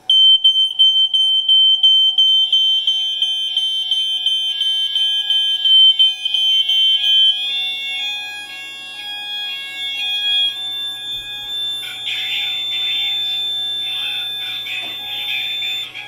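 AICO RadioLink smoke alarm sounding on test: a loud, high-pitched, rapidly pulsing alarm tone. About two seconds in, further alarm sounders join with alternating two-tone patterns as the radio link sets off the house fire alarm system. The alarms cut off near the end.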